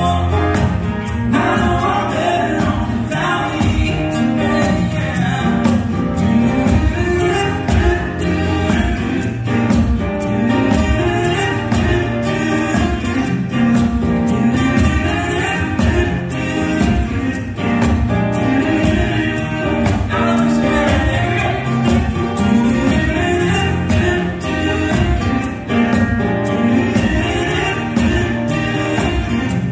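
Live acoustic band: several acoustic guitars strummed with singing over a steady beat.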